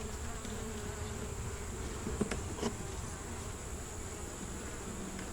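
Honeybees buzzing steadily around an opened hive, with two light knocks a little over two seconds in as a frame goes back into the box.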